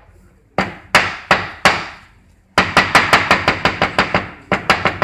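Wooden mallet pounding a strip of peeled papyrus pith on a wooden board in three quick runs of sharp knocks, several a second, beating the water and sugary sap out of the pith.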